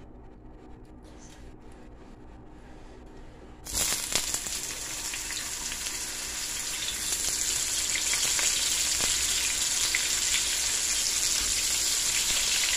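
Sliced sausage frying in hot oil in a nonstick wok: the sizzle starts suddenly about four seconds in as the first slices go in, then keeps up and grows a little louder as more slices are added, with small crackles of spitting oil.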